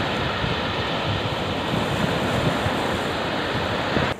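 Rough surf breaking steadily on the shore in stormy monsoon seas, with strong wind buffeting the microphone.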